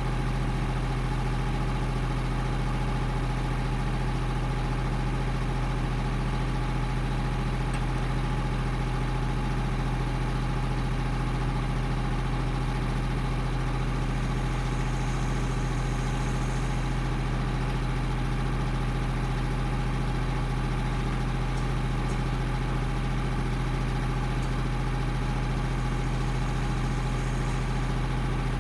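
Small tractor's engine idling steadily, a constant low hum with no revving or changes in speed.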